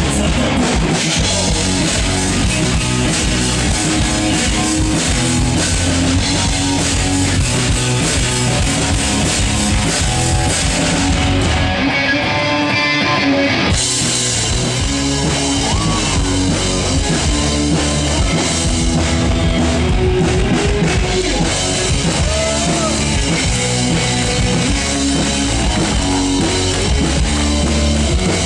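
Rock band playing an instrumental passage, with drum kit and electric guitar. About twelve seconds in, the cymbals and the low end drop out for about two seconds, then the full band comes back in.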